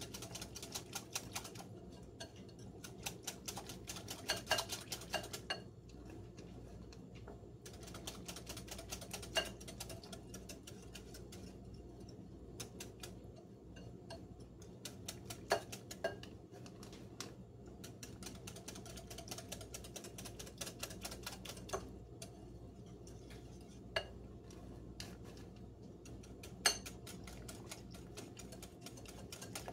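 Hand-operated metal flour sifter worked over a bowl of batter: runs of fast, light clicking from its mechanism, broken by short pauses, with a few sharper single clicks.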